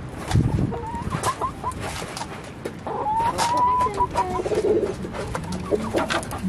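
Chickens clucking, with short calls about a second in and one drawn-out hen call about three seconds in, amid scattered clicks and scratches.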